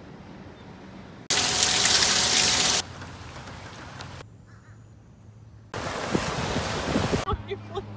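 A string of short, unrelated outdoor clips: faint ambience broken by two loud bursts of steady rushing noise, the first a little over a second in and the second about six seconds in. The second burst is surf washing onto a beach, with wind on the microphone.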